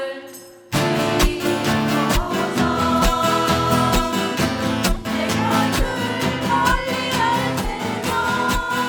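Live band music with a steady beat and a melody line over it, kicking in about a second in after a fading chord.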